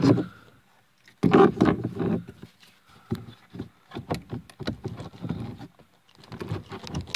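Hands forcing a tweeter and its wires down into a plastic dashboard speaker opening: plastic rubbing and scraping, then scattered irregular clicks and knocks. The rubbing is loudest about a second in.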